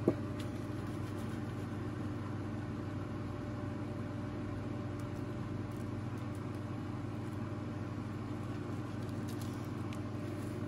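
Steady low hum of a running motor or appliance over a faint, even hiss, with a light click right at the start.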